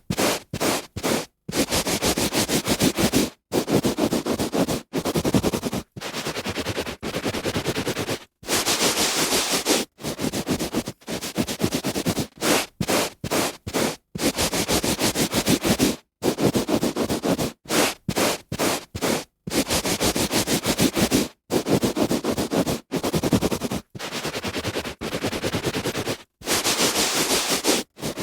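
A hand rubbing back and forth on a carpet: scratchy rubbing strokes, some short and quick, others lasting a second or two, broken by brief silences.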